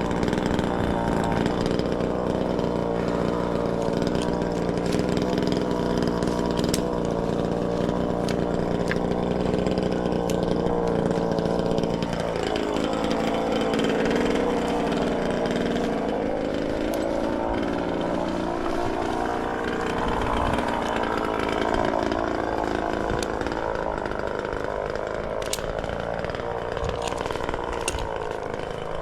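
Chainsaw running steadily; about halfway through its pitch drops and then wavers up and down.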